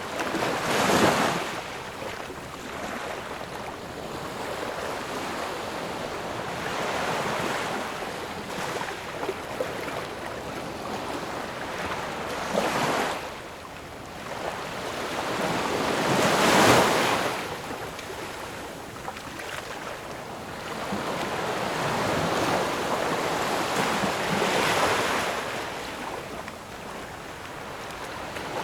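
Ocean waves breaking and washing in, a steady hiss of surf that swells with each breaker, the loudest about a second in and around 16 seconds in, others near 12 and 25 seconds.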